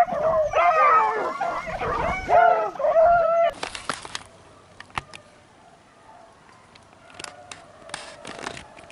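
Rabbit dogs baying in several bending, drawn-out calls as they take up the chase of a freshly jumped rabbit. The baying stops about three and a half seconds in with a short rustling burst, leaving a few faint clicks and rustles.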